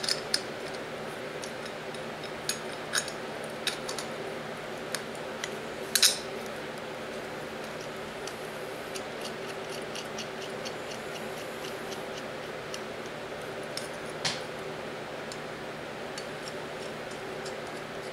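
Small steel parts clicking and tapping against each other and the steel table top as they are handled and fitted together, scattered light clicks with the loudest about six seconds in and fewer after. A steady hum runs underneath.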